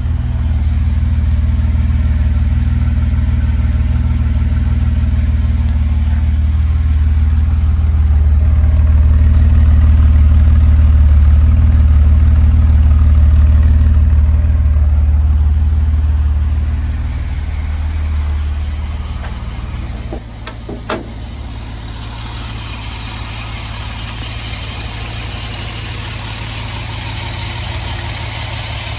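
1970 Mercedes-Benz 280SL's 2.8-litre straight-six idling steadily after a cold start. A deep exhaust drone is loudest for the first half. It then fades to a lighter, brighter engine-bay sound, with a couple of sharp clicks about two-thirds of the way through.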